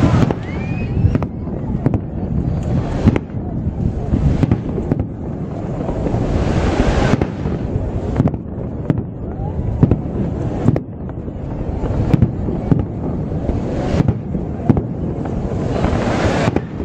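Fireworks display: aerial shells bursting in an irregular run of sharp bangs, several a second at times, over a continuous crackle and rumble.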